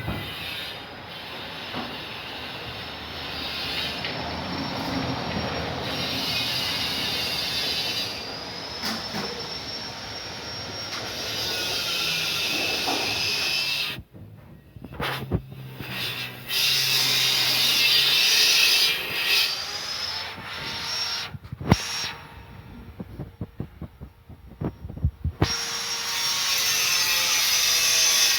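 Automatic telescopic sliding gate running along its track: a gate motor's whine over the rumble and rub of wheels on the rail. It breaks off briefly about halfway through and again for a few seconds later on.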